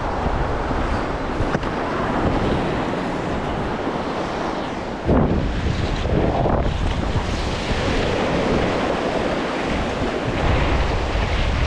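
Small breaking waves washing up a sandy beach, with wind buffeting the microphone. About five seconds in, a sudden louder splash of water.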